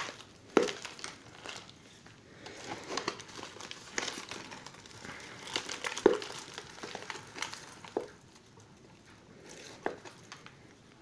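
Thin plastic bottle, cut down and used as an orchid pot, crinkling and crackling in irregular bursts as hands squeeze and twist it to loosen the bark and roots packed inside; the pot-bound roots are hard to free. The crackles are loudest about half a second and six seconds in and die down near the end.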